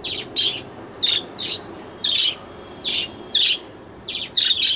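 Young birds chirping in short, sharp, repeated calls, about two a second.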